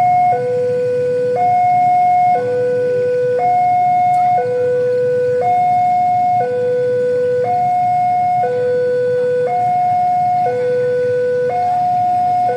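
Railway level-crossing warning alarm sounding a steady electronic two-tone, high and low pitches taking turns about once a second, over a low rumble.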